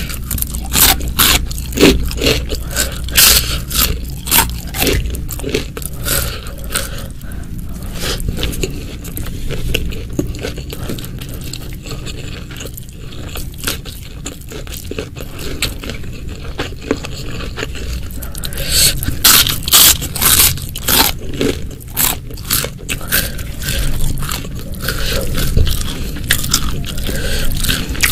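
Close-miked eating: crunchy bites and chewing of crisp food, with many sharp crunches. The crunches come thickest near the start and again about two-thirds of the way through.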